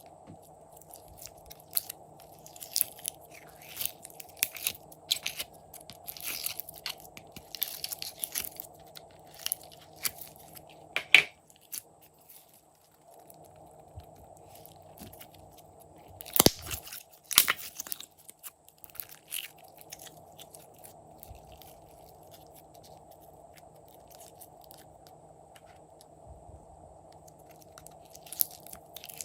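Slime being worked by hand with crunchy add-ins, giving irregular crunchy crackles and pops, with a few louder snaps partway through. A faint steady hum runs underneath.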